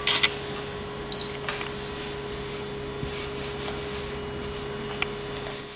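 A few light clicks and scrapes of a plastic spatula against a nonstick frying pan with a flatbread frying on high heat, over a steady low hum.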